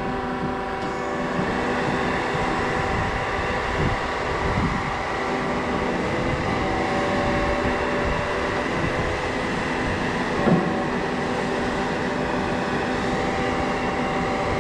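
Concrete pump truck's engine and hydraulics running steadily while the Concord 40-metre Z-boom is folded up: a constant mechanical drone with a steady hum. A short knock about ten and a half seconds in.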